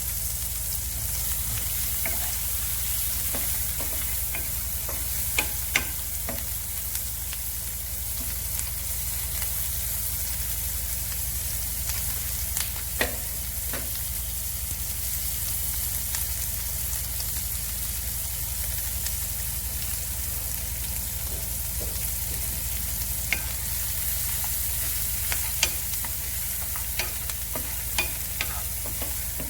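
Oil sizzling steadily in a pan as shallots, garlic and chilli sauté, with a utensil clicking against the pan a few times.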